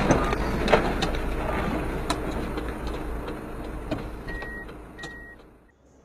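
Tail end of an SUV rollover crash: the overturned vehicle scraping and clattering to a stop among scattered debris, with a few sharp knocks as the noise dies away. Two short high beeps sound about four and five seconds in, then the sound cuts off suddenly.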